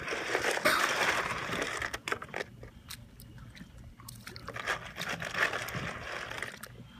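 Water splashing and sloshing against a dock as a bottlenose dolphin swims up and surfaces, loudest in the first two seconds and again a little past the middle, with a few light clicks between.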